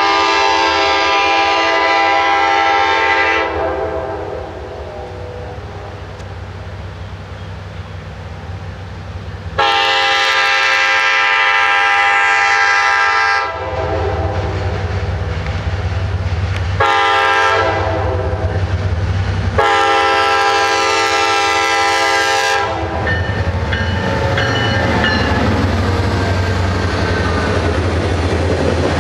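Air horn of an EMD F9A diesel locomotive sounding the grade-crossing signal, long, long, short, long, as the train approaches the crossing. Underneath, the deep rumble of the F-unit diesels builds, and near the end the locomotives pass close with steady wheel-on-rail noise.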